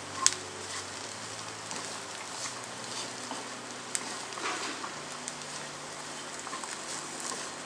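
Sliced vegetables sizzling in a non-stick frying pan as they are stir-fried, with a wooden spatula scraping and knocking against the pan a few times, the sharpest knock just after the start.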